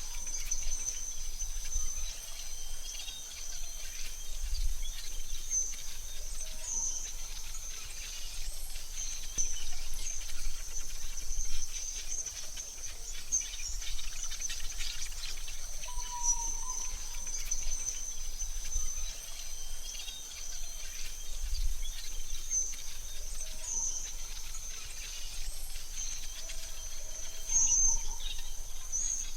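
Forest ambience: a steady high-pitched insect trill, with occasional short bird chirps and a soft low rumble.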